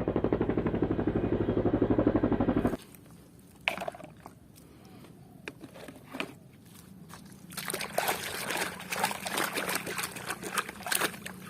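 A loud, rapid rhythmic pulsing that stops abruptly a little under three seconds in, followed by a few light knocks. From about halfway through, water splashes and trickles over plastic toys as they are washed.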